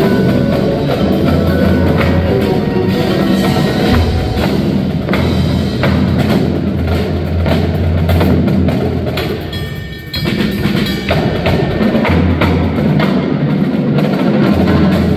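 Indoor percussion ensemble playing: marching drums, drum kit and mallet keyboards such as marimba and vibraphone, in a dense rhythmic texture. The sound thins out briefly about ten seconds in, then the full ensemble comes back in.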